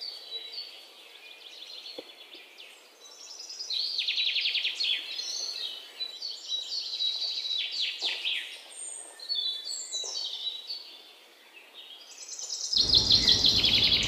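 Many birds calling at once, a dense chatter of short, rapidly repeated chirps and calls that overlap, growing louder about four seconds in.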